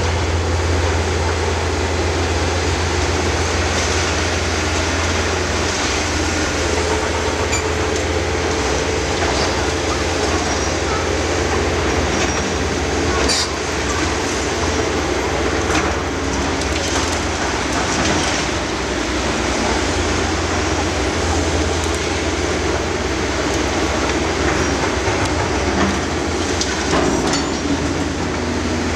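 Demolition-site machinery: heavy diesel plant running steadily with a low drone. A steady whine is held for several seconds in the middle, and there are scattered metal clanks and knocks.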